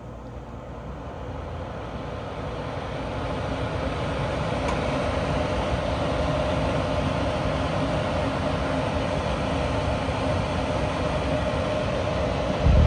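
Newly installed mobile home furnace's blower running, air rushing through the unit with a steady hum. It gets louder over the first few seconds as the blower speeds up after being turned up, then holds steady. A low thump comes right at the end.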